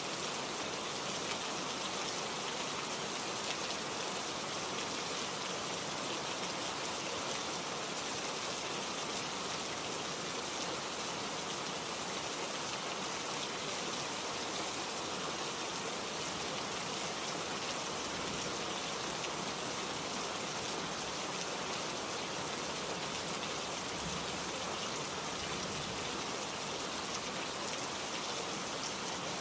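Steady, even rain falling on a surface, a continuous hiss of many drops.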